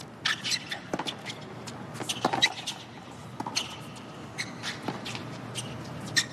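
Tennis rally on a hard court: a quick series of sharp pops as the ball is struck by the rackets and bounces on the court, roughly one a second.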